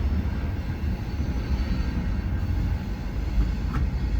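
Norfolk Southern freight train's cars rolling past, a steady low rumble.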